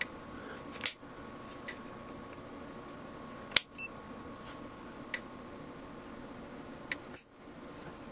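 Sharp clicks of fingers pressing the push-buttons on an Amprobe AM-510 digital multimeter, four or five of them, the loudest about three and a half seconds in, over a steady faint hum.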